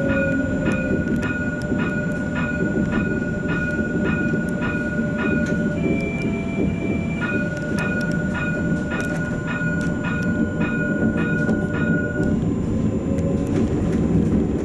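Light rail tram's warning bell ringing in rapid repeated strikes, about three a second, with a held ringing tone that changes pitch briefly in the middle and stops about twelve seconds in. It is a warning to a water-sprinkler truck pulling onto the track, heard over the tram's steady running rumble.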